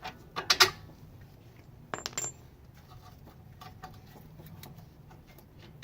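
Sharp metallic clinks of hand tools and metal parts knocking together: a quick cluster of loud clinks near the start and another short cluster about two seconds in, then only a few faint ticks.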